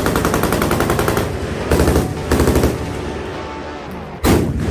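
Machine-gun fire: a long burst of rapid automatic shots that stops about a second in, two short bursts around two seconds in, then a single loud bang near the end.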